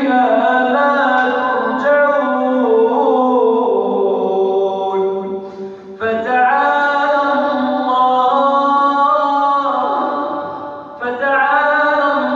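A male reciter chanting the Quran in melodic tajweed style, holding long drawn-out notes that step up and down in pitch. The notes fall into three phrases with short breaks between them.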